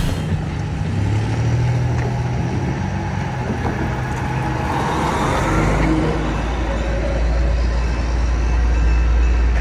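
Road traffic passing close by: a car, then a semi tractor-trailer tank truck going by, its engine bringing a deep, loud rumble from about halfway through.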